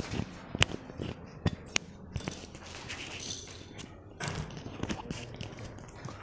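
Rustling and a handful of sharp clicks and knocks from a clip-on microphone being handled and fastened onto a jacket, with a few footsteps. The loudest clicks come in the first two and a half seconds, and a burst of rustling follows about four seconds in.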